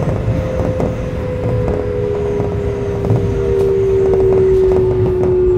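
Keio 8000 series train's Hitachi GTO-VVVF inverter whining with two steady tones that slowly fall in pitch, a second tone joining after about a second and a half. Underneath is the low rumble of the running train with light clicks.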